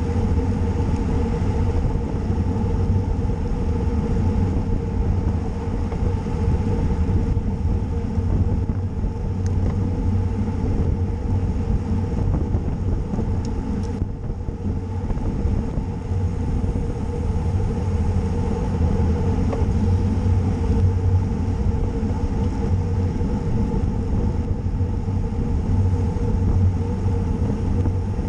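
Steady wind rush and road rumble on the microphone of a camera riding along on a racing bicycle at speed.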